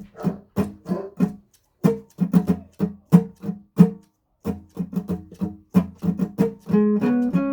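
Guitar played by plucking single notes, a few a second, with two brief pauses. Near the end the sound turns into a held, changing tone.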